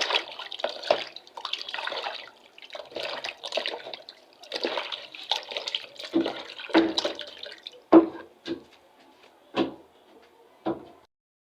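Liquid pouring and splashing in three short bursts, then about six separate sharp knocks.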